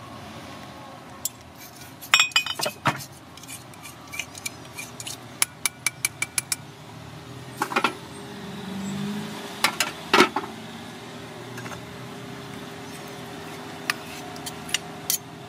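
Metal fork and spoon clinking and scraping against a plate while food in peanut sauce is cut and mixed: a series of sharp, irregular clinks, with a quick run of them about five seconds in.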